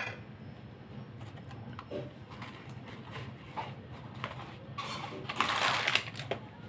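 Light clicks and small knocks of cooking things being handled, then, about five seconds in, a second-long crinkling rustle of a plastic packet of Kashmiri chilli powder being handled and opened.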